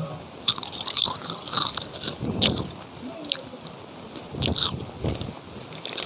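A person biting and chewing krupuk, crisp Indonesian crackers, making dry crackling crunches. The crunches come in irregular clusters with short pauses between bites.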